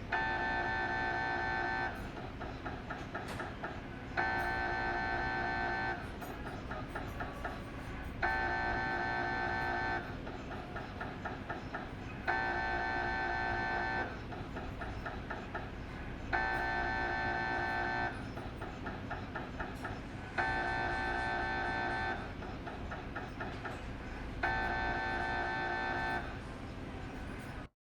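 Philips 1.5T MRI scanner running an imaging sequence, its gradient coils sounding in a repeating cycle: about two seconds of loud, steady-pitched buzzing, then about two seconds of quieter rapid tapping, about every four seconds. The sequence stops suddenly near the end.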